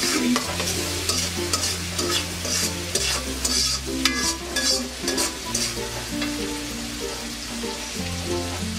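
Metal spatula stirring and scraping frying onions, long beans, green chillies and tomatoes around an iron karahi, the vegetables sizzling in hot oil. The scrapes come about once a second over a steady sizzle.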